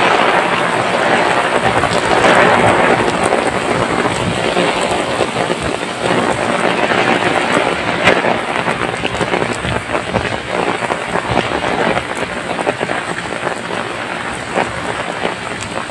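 Heavy rain pouring onto a wet paved path, a dense steady hiss, with the occasional slap of sandal footsteps on the wet ground.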